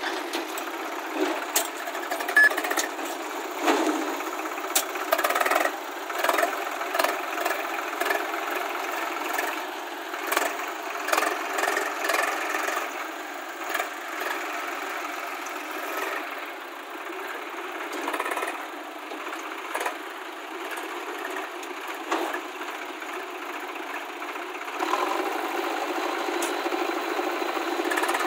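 Diesel engines of a Swaraj tractor and a JCB 3DX backhoe loader running, with irregular knocks and rattles from the machines working as the trolley is loaded with soil. About three-quarters of the way through, the engine noise grows louder and steadier.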